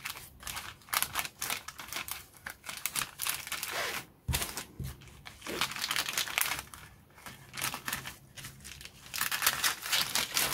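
Thin clear plastic bag crinkling and rustling in irregular crackles as it is handled and cut open along its edge with scissors.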